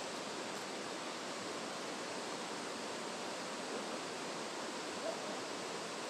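Steady rushing of a mountain stream's flowing water.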